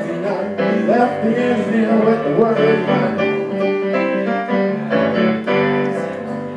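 Digital stage keyboard in a piano voice, played live: an instrumental passage of chords struck again and again, with a wavering melodic line over the first half.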